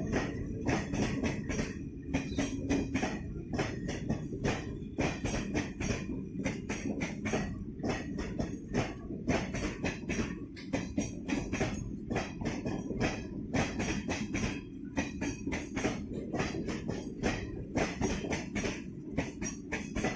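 Train wheels clattering over the rails and joints as the train rolls through, a rapid uneven run of clicks and knocks over a steady low rumble.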